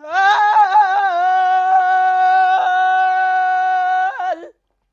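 A man singing unaccompanied in Amharic: a few ornamented, wavering notes, then a long high note held steady for about three seconds that dips and breaks off about four and a half seconds in.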